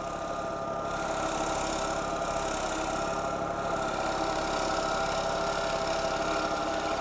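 Swept-back bowl gouge cutting a spinning bowl blank on a Record Power Coronet Herald lathe: a steady hiss of shavings being peeled off over the hum of the running lathe. The cut picks up about a second in and eases briefly just past halfway.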